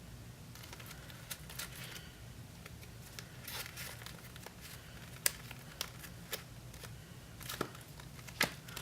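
Faint rustling and scattered light clicks and taps as small pocket items are handled and set down, with a few sharper clicks in the second half.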